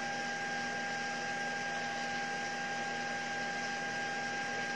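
Steady electrical hum and hiss, with a constant high whine and no other events.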